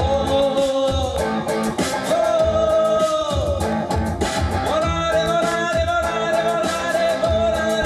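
Rock and roll band playing with a singer holding long, sliding notes over guitar and a steady beat.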